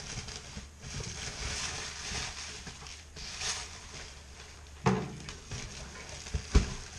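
Rustling and crinkling of a cardboard parcel and its packing filler being opened and handled by hand, with a knock about five seconds in and a sharper, louder one near the end.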